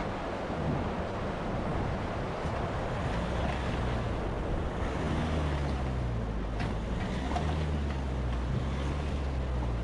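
Wind buffeting the microphone, with the Mahindra Scorpio S11 4WD's diesel engine running underneath; about halfway through the engine's low drone comes up clearly, its pitch stepping up and down a little as it works over rough ground.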